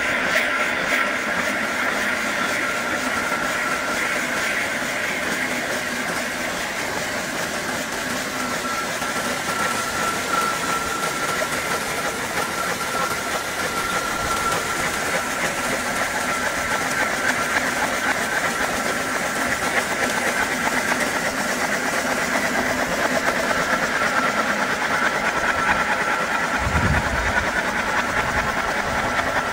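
A machine running steadily: a constant hiss and whir with a steady high whine.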